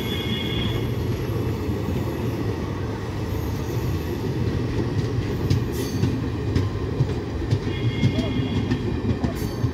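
Coaches of a departing Indian Railways express train rolling past: a steady rumble of wheels on rail, with a few clicks over rail joints and a brief high squeal at the start and again about eight seconds in.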